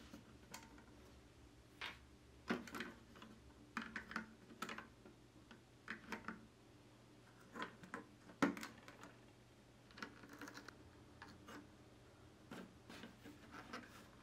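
Small plastic building bricks clicking and snapping together under the fingers as a brick model is put together: irregular, scattered clicks, a few of them sharper than the rest.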